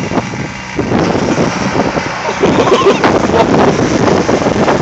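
Kubota riding mower's engine running as it drives toward a bush, with heavy wind buffeting on the microphone.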